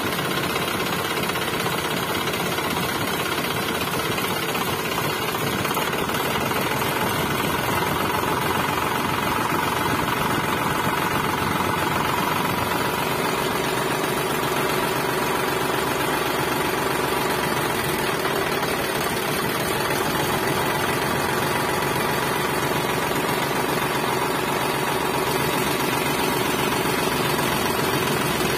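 Small motor of a homemade mini toy tractor running steadily with a buzzing rattle as it hauls and tips a trolley of soil. Its pitch drops about twelve seconds in.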